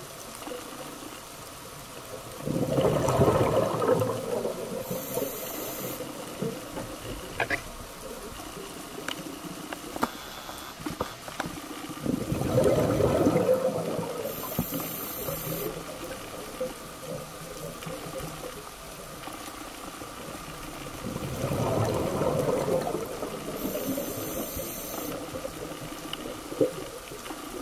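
Scuba diver breathing through a regulator underwater: three bubbling exhalations, each lasting a couple of seconds and about nine seconds apart, each followed shortly by a brief hissing inhale.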